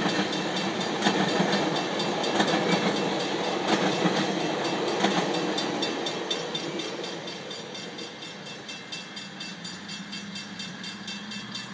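GO Transit bilevel passenger coaches rolling past close by, their wheels clacking at regular intervals over the rails. About six seconds in, the last car passes and the train noise dies away to a lower, steady sound.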